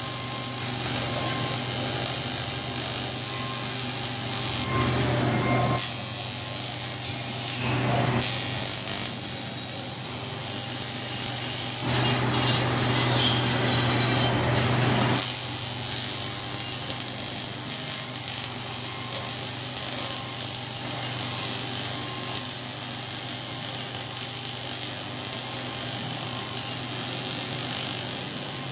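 AC TIG welding arc on aluminium, buzzing steadily with a hissing edge. It gets louder briefly about five and eight seconds in, and for about three seconds from twelve seconds in.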